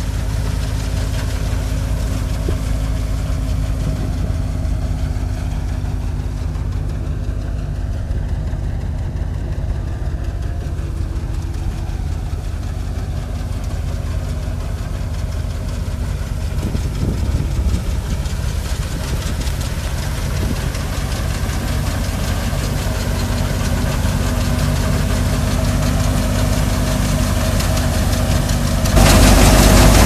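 Wheat thresher running steadily, a constant low mechanical drone. About a second before the end it becomes suddenly much louder and closer.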